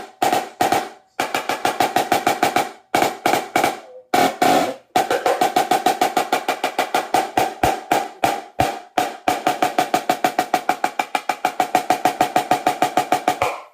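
A drum played with sticks, each stroke ringing with a pitched tone: a few short runs of strokes with gaps between, then a long even run of fast strokes, about seven a second, stopping near the end.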